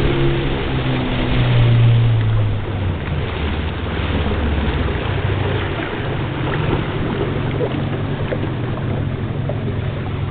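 Motorboat engine running under way, with wind and water rushing past the hull. The engine note shifts during the first few seconds, then holds steady.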